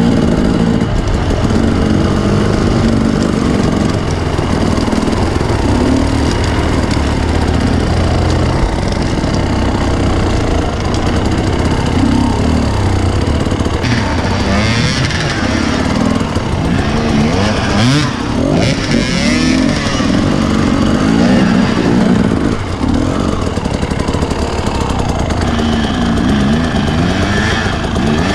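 Off-road dirt bike engine heard from the bike itself, revving up and down repeatedly under throttle while riding a snowy gully, with a rougher hiss mixed in over the middle stretch.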